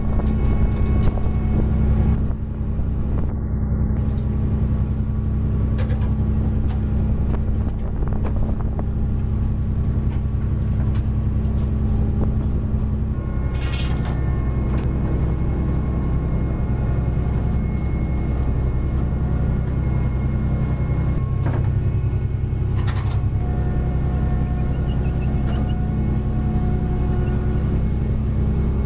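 Fishing trawler's engine and deck machinery running with a steady low drone. Its tone shifts partway through, with a few short knocks.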